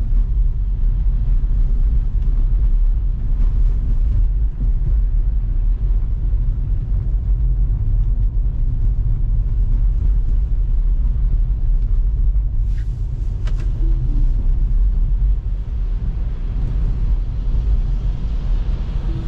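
Steady low road and tyre rumble from a Tesla electric car driving through a snow storm, with a couple of faint clicks about two-thirds of the way in.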